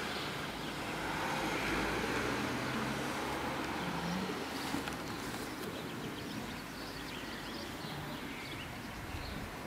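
Outdoor background noise: a steady hiss that swells over the first few seconds, then settles.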